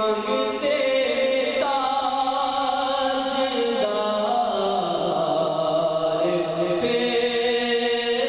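A man singing a naat, an Urdu devotional poem in praise of the Prophet, solo without instruments. He holds long notes and slides between pitches in a chant-like melody.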